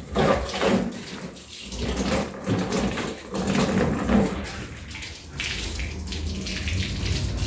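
Water from a garden hose splashing into a black plastic dog kennel as it is rinsed. Near the end the kennel is tipped up and the rinse water pours out onto the tiles.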